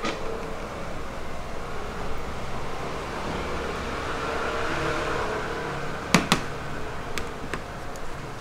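A flat scraper slides under a hardened sugar painting to lift it off a galvanized metal plate, giving a scraping hiss, with two sharp clicks close together about six seconds in and a few fainter ticks after, over a steady background noise.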